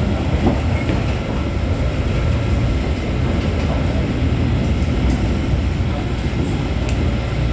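Steady low rumble of a VLT light-rail train running along the track, heard from inside the passenger car.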